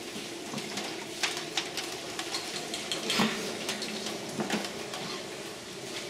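Dining-room background at a buffet: scattered clinks of dishes and serving utensils over a steady hum.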